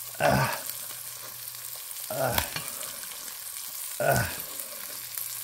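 Steak frying in butter in a nonstick pan: a steady sizzle. Three short, louder sounds with a falling pitch stand out above it, about two seconds apart.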